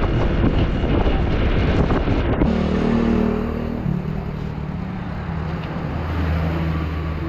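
Motor vehicle running, with wind buffeting the microphone. About two and a half seconds in, the sound cuts to a quieter, steady engine hum.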